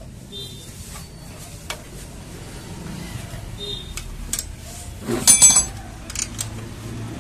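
Steel hand tools, a spanner and a socket extension, clinking against metal while a 10 mm bolt is undone. There are scattered light clicks, then a quick cluster of sharp, ringing metallic clinks about five seconds in.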